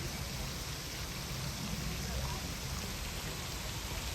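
Steady, even hiss of noise with a low rumble underneath, like rain or rushing water.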